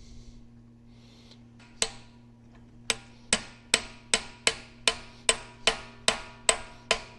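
Hammer blows on a metal part of a tractor transmission, knocking it loose: one blow, then a steady run of ringing strikes at about two and a half a second.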